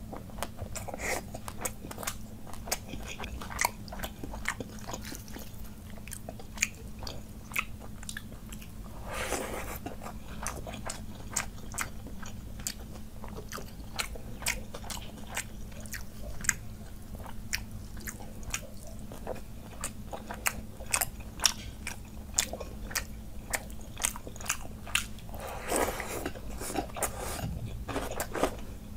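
Close-miked eating: steady chewing and crunching bites with many sharp wet mouth clicks, and two longer, noisier swells about a third of the way in and near the end, during a meal of watery fermented rice (panta bhat) with fried food.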